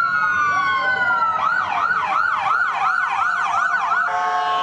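Emergency vehicle siren: a wail falling in pitch switches to a fast yelp of about three rising sweeps a second, and near the end a steady horn blast of several held tones cuts in.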